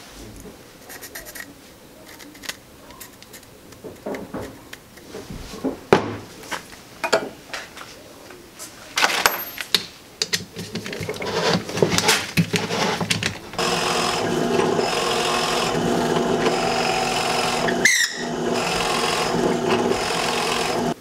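Hand tools clattering on a wooden bench and a screwdriver driving screws to fix a metal lathe faceplate onto a maple and zebrawood blank, heard as irregular clicks and knocks. About 13 seconds in, a drill press starts running steadily and bores into the wooden blank, with a brief dip near the end.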